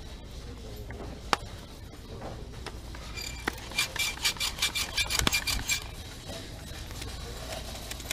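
A single sharp click, then a few seconds in a quick run of hard rattling clicks with a faint ring, lasting about two seconds.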